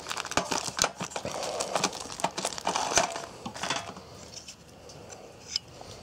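Small paper-and-tinder fire crackling and crinkling as it burns; the crackle thins out after about four seconds, leaving a few isolated ticks.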